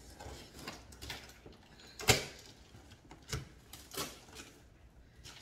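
Cardboard shipping box being opened by hand: scraping and rustling of the flaps with a few sharp knocks, the loudest about two seconds in.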